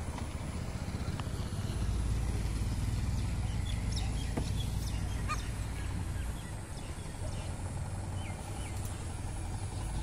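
Faint, scattered bird chirps over a low rumble that swells from about two seconds in and eases off after about six seconds.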